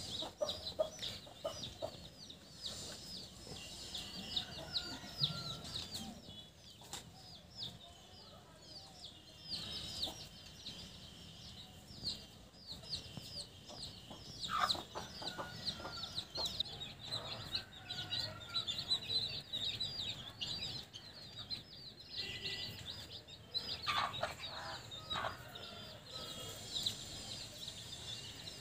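Newly hatched chicks peeping almost without a break, many short high cheeps that fall in pitch, with a hen clucking low now and then.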